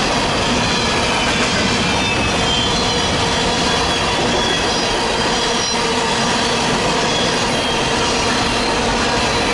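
Grain train's freight cars rolling past steadily, with wheels clicking over the rail joints and thin high squeals from the wheels.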